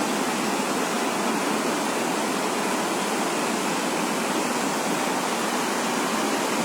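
Steady, even rush of seawater floodwater flowing after a cyclone storm surge.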